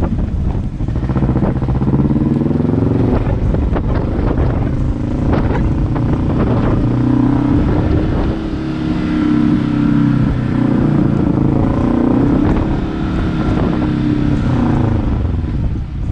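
Kawasaki KRX 1000 side-by-side's engine running under way, its pitch rising and falling several times as the throttle is worked, with wind buffeting the microphone.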